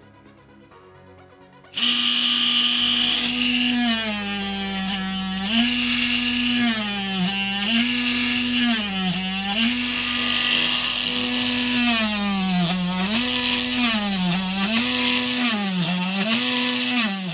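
Homemade mini drill press's electric motor switched on and running at high speed with a loud whine. Its pitch dips and recovers about seven times as the bit is pressed into the work and eased off. It cuts off abruptly near the end.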